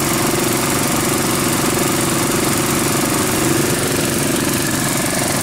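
Small gasoline engines powering a gold dredge, running steadily, with water rushing through the sluice box over the matting.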